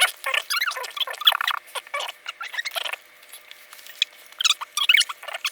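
A plastic parts bag of building bricks being torn open and handled: dense crinkling of thin plastic with small plastic pieces clicking, easing off for a moment past the middle.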